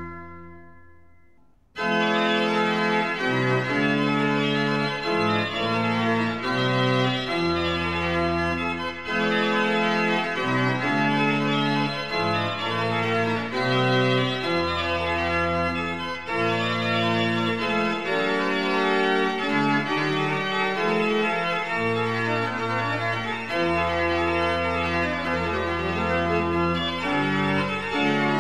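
Pipe organ music: a held chord fades away over the first second or two, then a new piece begins with sustained chords over low bass notes.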